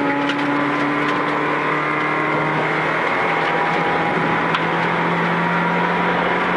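Rally car engine heard from inside the cabin, held at high revs in one gear with its pitch climbing slowly as the car accelerates, over tyre noise on the gravel road.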